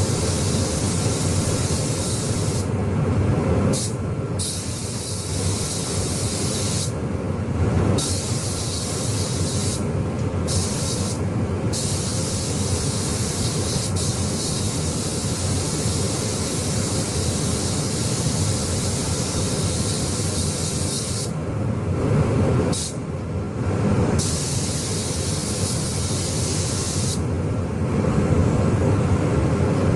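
Paint spray gun hissing as direct-gloss car paint is sprayed in long passes. The hiss cuts out briefly about eight times, as between passes, over a steady low rumble.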